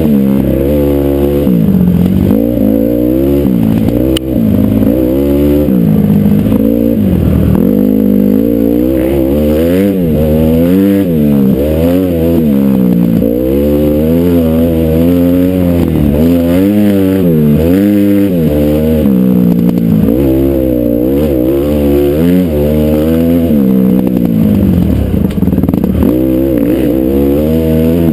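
Honda CRF450R's single-cylinder four-stroke engine revving up and backing off over and over as the rider works the throttle through a trail ride, its pitch climbing and dropping every second or two.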